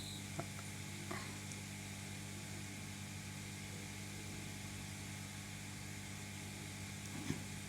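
Steady low electrical hum with a faint hiss, broken by a few light ticks, one about half a second in, one about a second in and one near the end.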